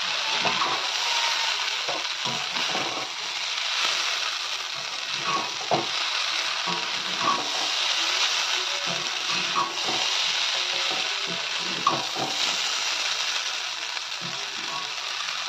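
Pasta with vegetables and fried egg sizzling steadily in a metal kadai as a perforated metal spoon stirs and scrapes through it, with irregular clinks of the spoon against the pan.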